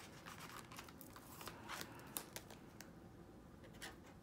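Faint crinkling and rustling of clear plastic zipper envelopes and paper bills being turned in a cash binder, with a few soft ticks, dying down after about two seconds.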